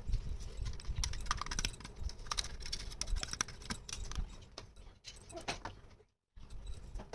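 Many quick light clicks and taps of small plastic toy kitchen pieces being handled and set down, with the sound cutting out completely for a moment about six seconds in.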